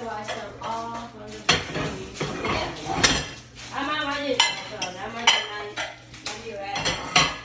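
Dishes and cutlery clinking and clattering as they are taken out of a dishwasher and put away, with sharp knocks of crockery and metal throughout.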